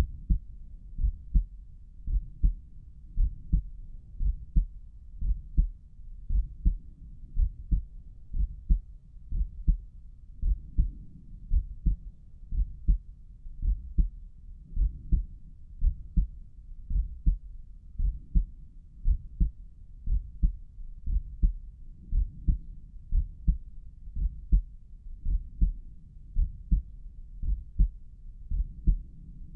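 A human heartbeat heard through a stethoscope chest piece held at Erb's point on the chest: steady, regular lub-dub pairs of low, dull thumps.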